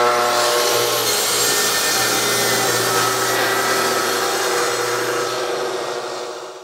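Plunge track saw cutting through a plywood panel along its guide rail. The motor spins up at the start, runs steadily through the cut, and winds down near the end.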